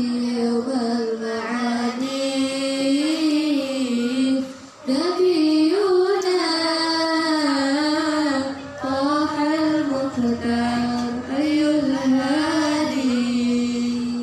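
A young woman singing solo into a microphone during vocal practice, with long held notes that waver and turn in ornamented melodic runs, and no instruments. There is a short break about five seconds in, and the singing stops abruptly at the end.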